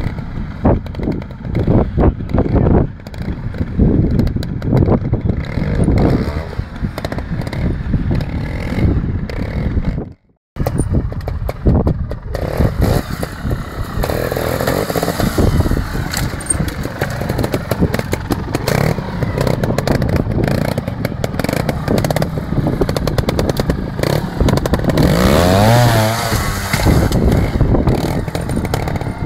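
Beta trials motorcycle engine being blipped and revved in short, uneven bursts as the bike is ridden slowly over rocks, with one rising rev near the end. The sound drops out briefly about ten seconds in.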